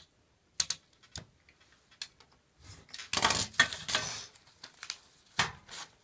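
Sharp clicks and clatter of a plastic ruler and a snap-off utility knife handled on a glass-topped table, with a denser scraping rustle of paper and ruler around the middle.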